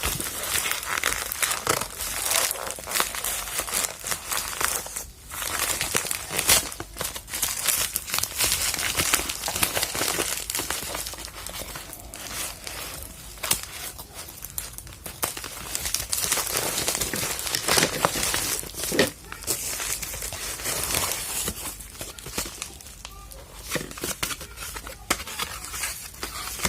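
Parcel packaging crinkling, rustling and tearing as it is opened by hand, in a close, continuous run of crackles and snaps.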